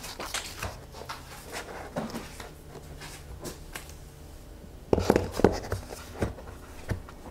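Hands handling a laptop's cardboard and paper packaging. There are light paper rustles and small clicks at first, then a cluster of knocks and scrapes about five seconds in as the plastic power adapter is set down into the cardboard box tray.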